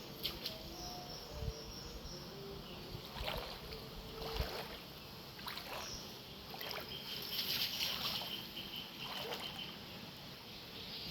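Shallow floodwater splashing in irregular short bursts, over a steady background of moving water.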